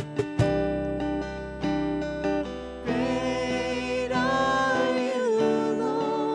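Worship song on acoustic guitar, strummed chords and single notes. About three seconds in, singing comes in: a woman's voice in long held notes with vibrato over the guitar.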